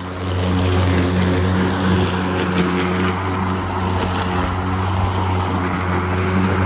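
Ryobi 20-inch 40-volt brushless battery lawn mower running while cutting grass: a steady electric motor and blade hum. It gets louder about a third of a second in.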